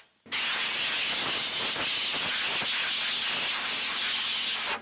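Compressed-air blow gun blowing off a rear drum-brake backing plate and hub: a loud, steady hiss of air. It stops for a moment right at the start, then runs on and cuts off sharply near the end.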